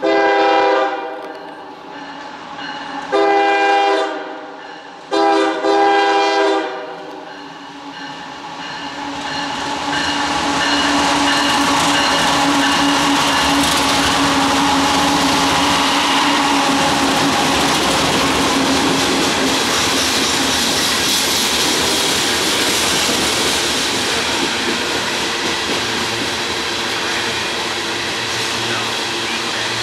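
Air horn on the lead GE ES44AH diesel locomotive of a loaded coal train, sounding a chord in a long, long, short, long pattern, the grade-crossing signal. The GE locomotives then pass close by with their engines running, followed by loaded steel coal gondolas rolling over the rails with wheel clatter that builds and holds steady.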